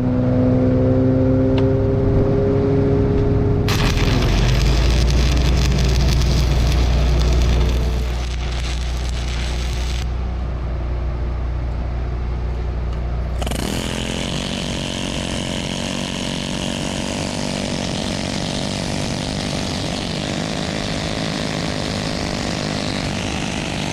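Stick welding: the arc crackles and hisses in two long runs, with a break about ten seconds in, over an engine running steadily underneath.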